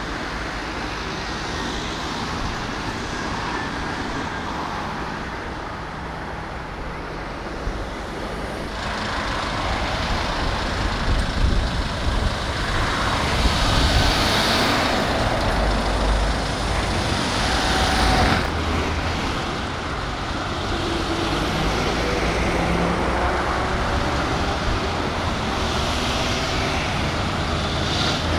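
Motorway traffic noise with heavy trucks, a steady rumble that swells louder as vehicles pass about halfway through.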